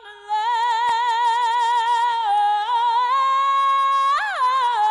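A woman singing solo without accompaniment, a wordless held vowel. She holds long notes with a wide vibrato, steps up to a higher note about three seconds in, then swoops sharply up and back down about four seconds in.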